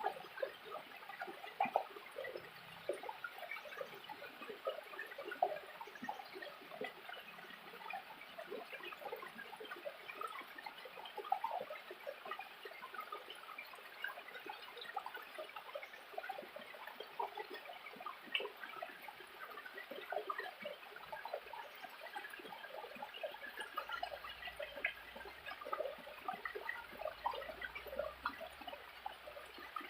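Small waterfall splashing and gurgling over rocks: a steady, busy patter of bubbling and trickling water.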